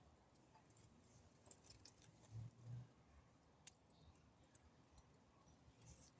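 Near silence with faint, scattered crackles of a wood fire and two soft low thumps about two and a half seconds in.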